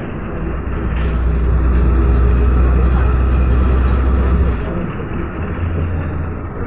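Cabin noise inside a moving Ikarus city bus: a low diesel engine drone with road noise. The drone grows louder about half a second in and eases off again after about four and a half seconds.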